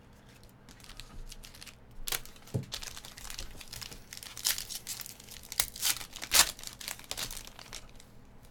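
Foil wrapper of a Panini Chronicles baseball card pack being torn open and crinkled by hand: a run of crackling rustles that starts about two seconds in and dies away near the end.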